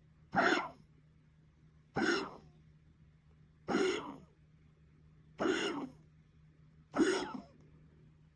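A series of five harsh coughs, one about every one and a half to two seconds, each short and sharp at the start.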